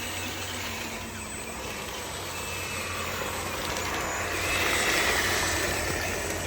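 Small electric motors of radio-controlled construction trucks whirring steadily, growing louder about four to five seconds in.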